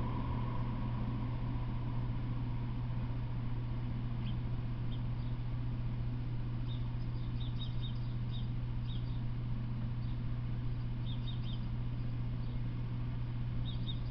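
Short, high chirps of a small bird in quick clusters of three or four, starting about four seconds in and repeating every second or two, over a steady low hum.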